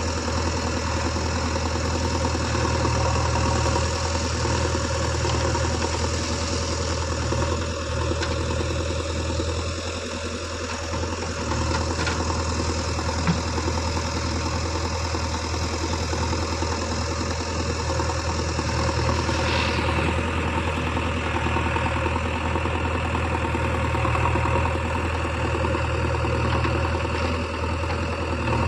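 Diesel engine of a JCB 3DX backhoe loader running steadily, dipping slightly about ten seconds in, with a single sharp click a few seconds later.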